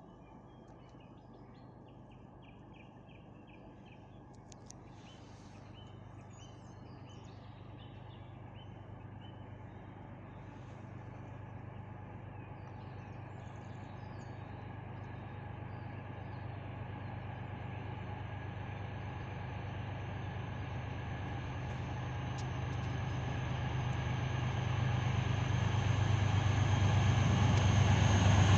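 ST40s diesel locomotives approaching with a low, steady engine drone that grows louder throughout. Birds chirp faintly in the first several seconds.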